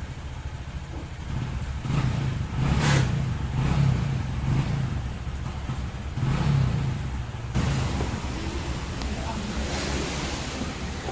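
Honda Vario 125 scooter's single-cylinder engine running, with the throttle blipped a couple of times, about two seconds in and again around six seconds.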